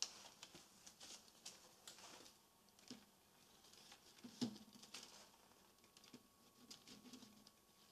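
Faint rustling and light taps of a plastic component reel and its carrier tape being handled, with one slightly louder knock about halfway through.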